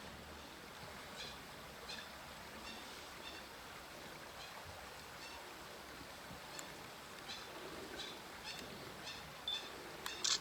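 Faint outdoor ambience with a steady hiss and a series of short, high chirping calls from a wild animal, repeated about once or twice a second and louder near the end.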